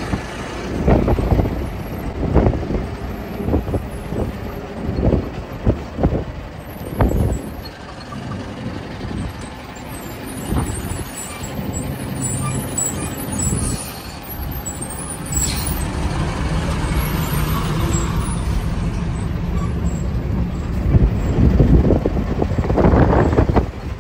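Truck running downhill on a ghat road, heard from inside the cab: engine drone and road noise, with irregular thumps and rattles over the first several seconds, then a steadier drone that grows louder near the end.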